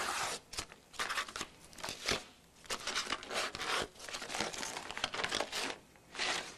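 A large paper envelope being torn open and rustled in the hands as its contents are worked out, in a series of irregular crinkling, tearing rustles.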